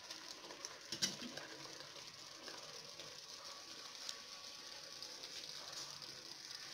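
Metal slotted spatula stirring and turning rice in a cooking pot: faint scraping, with a knock about a second in and a lighter tap near four seconds, over a steady hiss.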